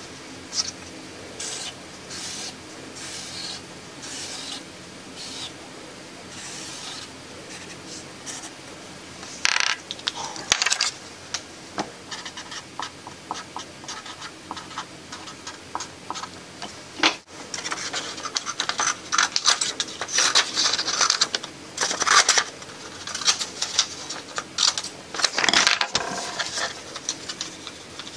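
Thick felt-tip marker rubbing and squeaking across paper in repeated strokes as printed lines are crossed out and a word is written by hand. The strokes come about once a second at first, then come faster and louder in the second half, with paper being handled near the end.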